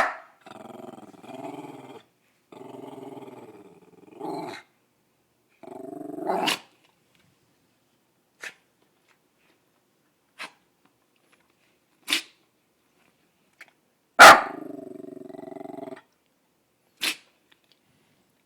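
Small dachshund-poodle mix dog growling in long held rumbles that break into barks, three times in the first seven seconds and once more about fourteen seconds in. In between come several short sharp sneezes, brought on by the hard barking.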